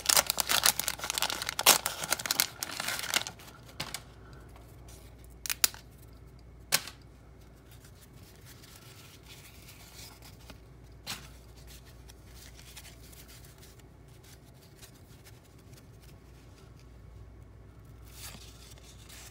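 Waxed-paper wrapper of a 1987 Topps baseball card pack being peeled and torn open, crinkling loudly for about the first three seconds. After that it is quiet apart from a few sharp clicks as the cards are handled.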